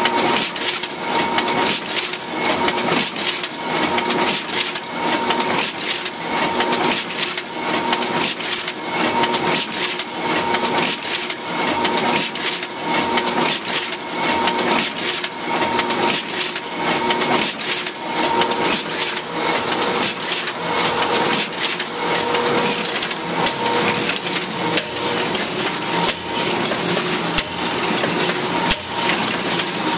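Duplo 1060 twin-tower paper collator system running in block mode, feeding sheets with a steady dense clatter of rapid clicks and rattles. A short tone recurs about once a second.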